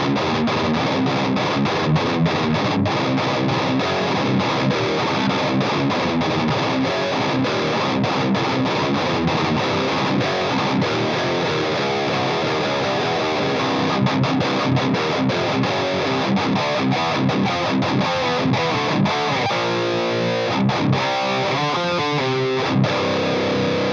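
Distorted electric guitar, a Washburn Parallax tuned to drop C, played through a Marshall Vintage Modern 2466 100-watt valve head: busy heavy riffing that opens out near the end into separate ringing chords and a held note.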